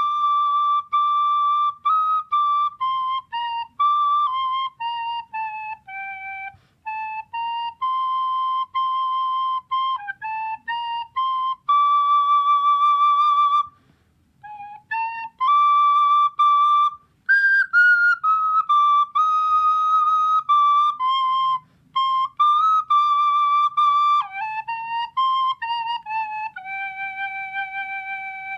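Music: a solo flute playing a slow melody one note at a time, with held notes and short pauses between phrases.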